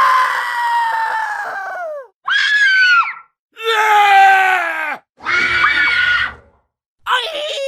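Human screams played one after another with short silences between them: four separate screams, most sliding down in pitch, the first about two seconds long, and a fifth starting near the end.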